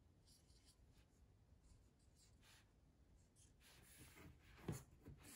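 Faint felt-tip marker strokes on a paper strip as a three-digit number is written, with one louder brief knock near the end.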